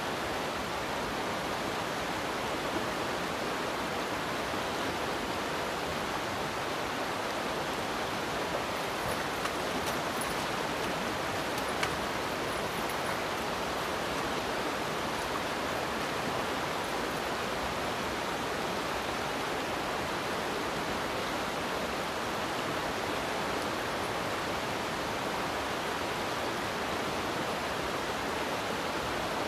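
Steady rush of a fast-flowing river running over rocks and riffles, an even, unbroken sound of moving water.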